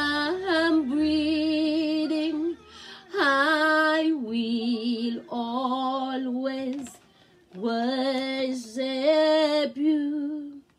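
A woman singing a slow English worship song, holding long notes with vibrato in phrases a couple of seconds long, with a short pause about two-thirds of the way through.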